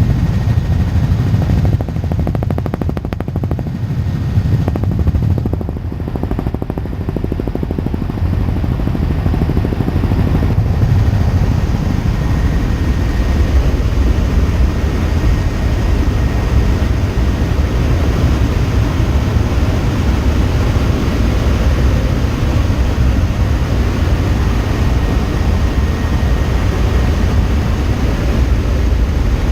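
Helicopter rotor and engine noise: a loud, steady low drone with no let-up.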